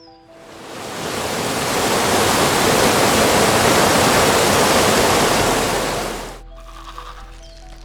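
Loud, steady rushing water that swells up over the first second or so and cuts off about six seconds in. Soft background music returns after it.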